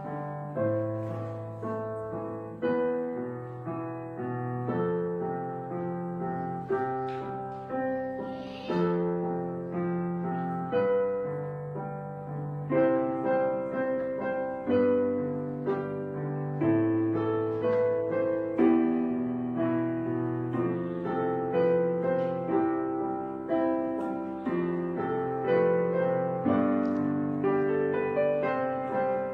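Background piano music: a gentle melody of struck notes over lower bass notes, at a steady, unhurried pace.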